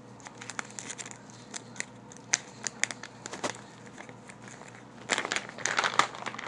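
Plastic packaging crinkling and rustling as it is handled and opened: scattered small crackles at first, then a louder, denser stretch of crinkling about five seconds in.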